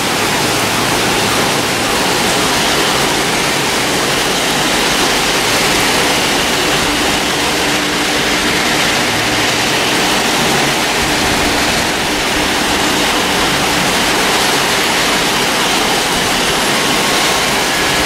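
Heavy rain pouring down in a steady, unbroken rush.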